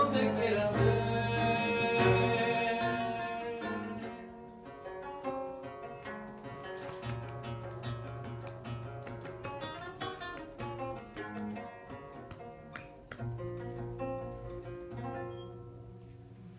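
Live band playing the closing instrumental bars of a song, led by plucked acoustic guitar over low held notes, the playing gradually fading away to the end of the song.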